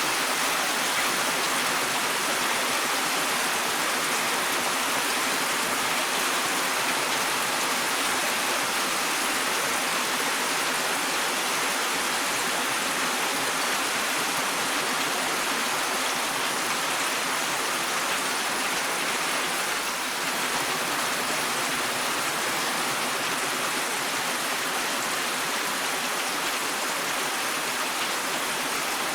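Steady, even rainfall: a constant hiss of rain with no separate drops, thunder or pauses standing out.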